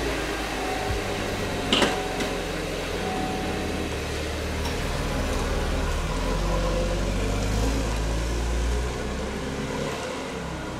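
Chevrolet Camaro's engine running as the car pulls away and drives off, a steady low hum that swells in the middle and eases near the end. A single sharp knock about two seconds in.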